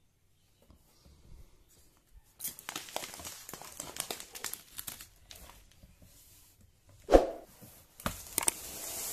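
Heavy plastic bag of rice crinkling and rustling as it is handled in a cardboard box, starting a little over two seconds in. A single loud thump about seven seconds in.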